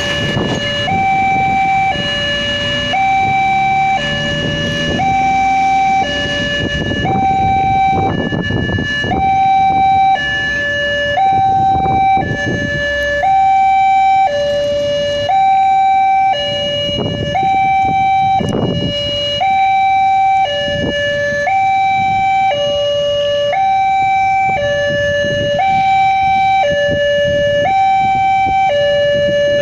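Railway level-crossing warning alarm: an electronic two-tone signal switching between a higher and a lower pitch about once a second, sounding while the barrier comes down ahead of an approaching train. Road vehicles pass underneath it.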